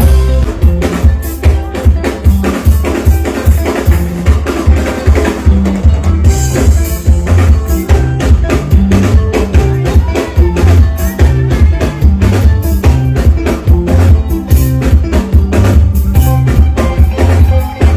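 Loud music with heavy bass and a fast, driving drum beat, played through a sound system at a sound check.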